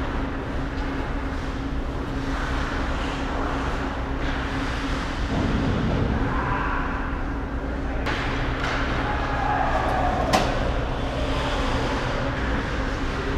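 Ice-rink game sound: a steady low hum of the arena with skate blades scraping on the ice, and one sharp crack of a stick or puck strike about ten seconds in.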